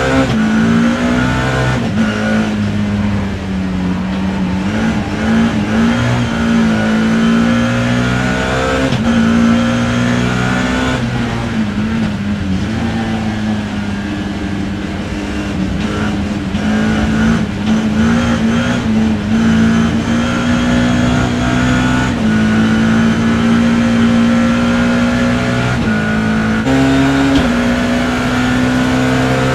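BMW E30 M3's four-cylinder S14 race engine heard from the cockpit, revving hard through the gears: the pitch climbs and steps down at each gear change several times, then holds steady at high revs for the last several seconds.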